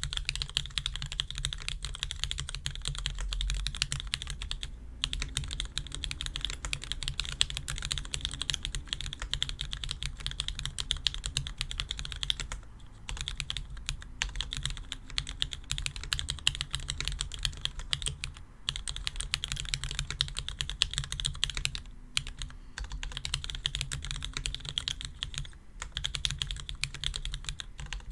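Fast, continuous typing on a custom mechanical keyboard with lubed vintage Cherry MX Black linear switches (Wyse blacks) on 60 g springs, lubed stabilizers and an aluminium plate. The keystrokes run as a dense stream of clicks, with a few short pauses.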